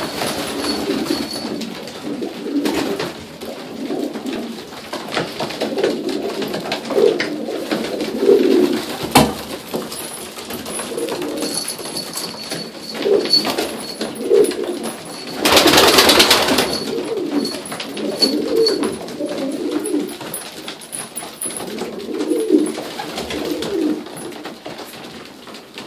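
A flock of domestic pigeons cooing, many overlapping low warbling coos throughout. A loud burst of noise lasting about a second and a half comes about two-thirds of the way through, with a few sharp clicks scattered elsewhere.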